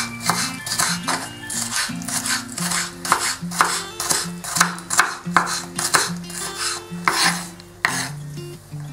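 A chef's knife chopping red bell pepper into small dice on a wooden cutting board, about two strokes a second. Background music plays under it.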